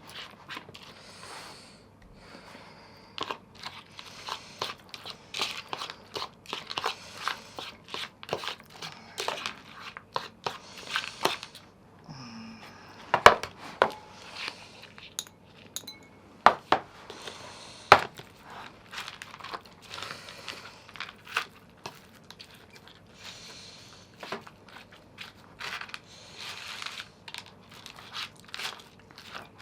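Plastic packaging crinkling and rustling as it is handled during cat-food preparation, with many small clicks and three louder sharp knocks in the middle stretch.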